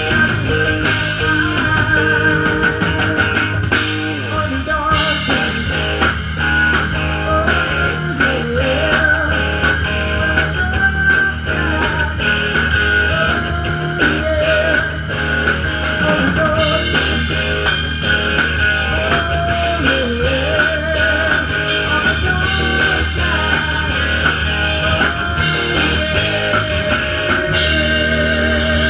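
Live rock band playing a blues-rock number: electric guitars, bass, drum kit and keyboard.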